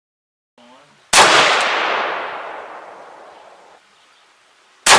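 Two rifle shots from a muzzle-braked 6.5 Grendel AR-style rifle, about a second in and again right at the end. Each is a sharp crack followed by a long echo that fades over about two and a half seconds.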